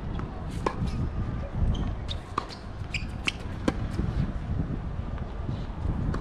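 Tennis rally on a hard court: a tennis ball struck by racquets and bouncing, heard as a string of sharp pops and knocks, about six in all and spaced irregularly, over a low, uneven rumble.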